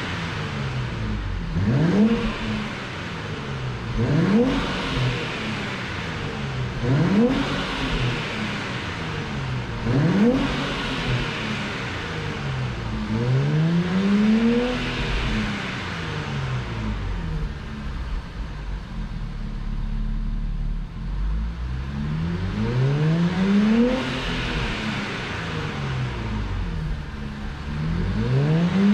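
Nissan Skyline 400R's 3.0-litre twin-turbo V6 revved in place through a NISMO Sports Titanium Muffler, heard from just behind the tailpipes. It gives four quick throttle blips about three seconds apart, then two slower, longer revs with a steady idle between them, and one more quick blip near the end.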